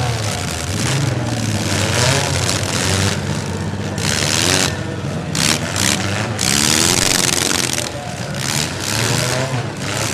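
Demolition derby cars' engines revving up and down, with loud noisy surges about four seconds in and again about six seconds in.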